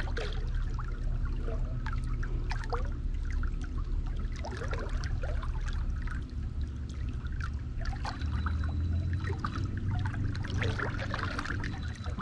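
Water lapping and trickling against the side of a fishing boat, with many small splashy sounds, over a steady low hum that grows louder about eight seconds in.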